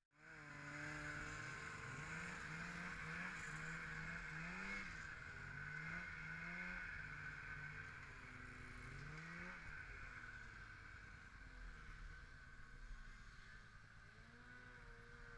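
Snowmobile engine running while the sled is ridden, its pitch climbing and dropping again and again as the throttle is worked, over a steady hiss.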